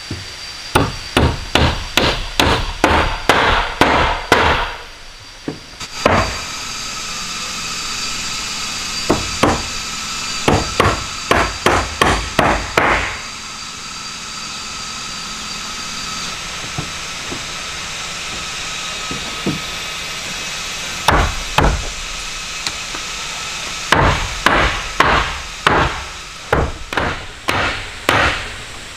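Hammer driving nails into wood in runs of quick, evenly spaced blows, about three a second, with pauses between the runs.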